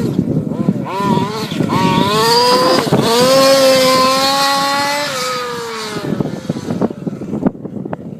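Rooster Tail 28.5 Podium engine revving: a few short rising blips, then held at high revs for about two and a half seconds before the pitch falls away, with a few sharp clicks in the quieter stretch near the end.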